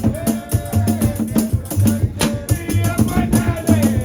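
Background music with a steady drum beat, shaker strokes and a held, sliding melody line.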